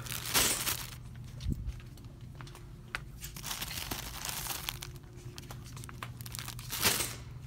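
Plastic wrapping of Cottonelle packs crinkling and rustling as they are handled, louder in two bursts near the start and near the end, over a steady low hum.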